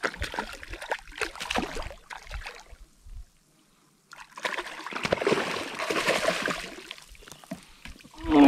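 Water splashing and sloshing as a hooked speckled trout thrashes at the surface and is scooped into a landing net, broken by about a second of near silence just past the three-second mark.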